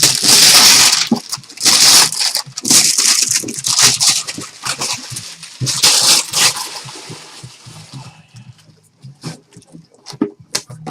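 Crinkling and rustling of plastic wrap and cardboard packaging being handled and pulled apart while a sealed card box is unpacked, in several loud surges, then fainter scattered rustles and clicks over the last few seconds.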